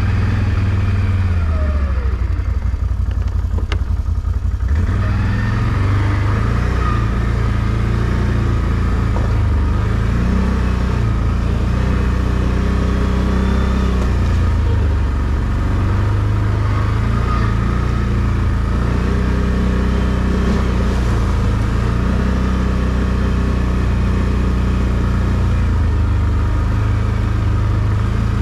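ATV engine running under way, its revs rising and falling with the throttle; it eases off briefly about two to five seconds in.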